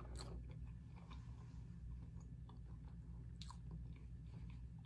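A person chewing food close to the microphone: faint, soft mouth clicks and smacks, with sharper clicks just after the start and about three and a half seconds in.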